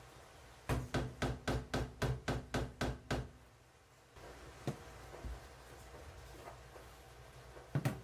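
A portafilter of ground espresso coffee tapped about ten times in quick, even succession, about four knocks a second, to settle the grounds. A faint click follows, and a sharp double knock comes near the end.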